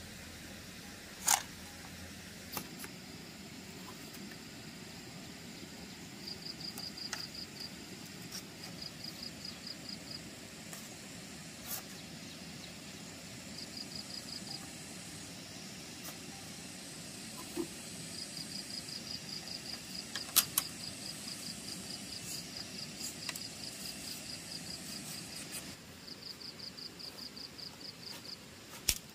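Insects chirping in high, rapid pulsed trills of about ten pulses a second, coming in bouts from about a second to several seconds long. A few sharp knocks or clicks come through, the loudest about two-thirds of the way in.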